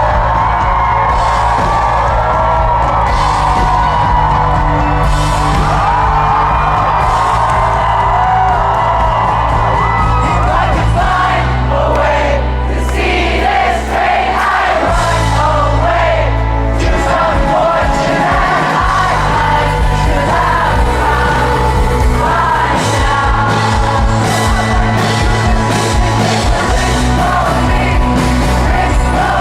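Live rock band playing a song, with a sung lead vocal over sustained bass notes.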